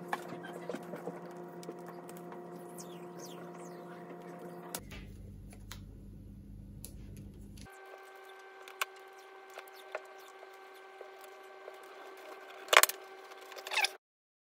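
Hands wrapping electrical tape around a plastic pipe: faint taps and rustles over a steady hum, with two brief louder rasps near the end.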